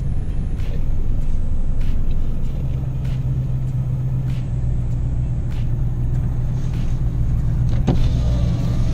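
Steady low exhaust drone and road noise heard inside the cabin of a 1993 Fox-body Mustang cruising. Its stock 5.0 V8 breathes through the stock H-pipe with catalytic converters and a Pypes M80 stainless cat-back. A short click about eight seconds in.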